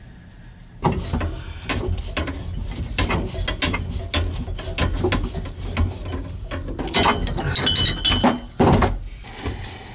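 A small tubing cutter being turned around a water supply pipe: a dense run of metallic clicking and scraping that starts about a second in and stops shortly before the end.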